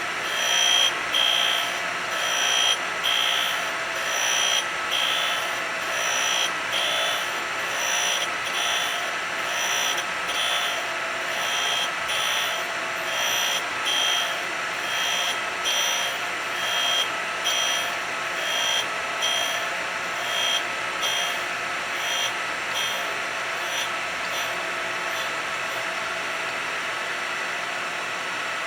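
Power grinder running with a steady high whine, swelling and easing about once a second. Near the end the pulsing stops and it runs on evenly.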